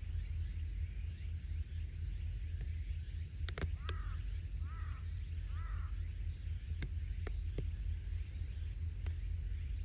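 Three short, arched bird calls about a second apart, crow-like caws, over a steady low rumble. A few sharp clicks come just before and after the calls.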